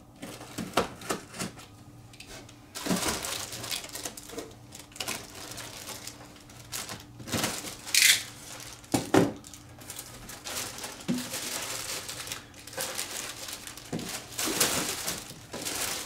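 Packaging being handled and unwrapped: crinkling and rustling wrap, with scattered taps and knocks as parts are moved and set down, and a short sharp rustle about halfway through.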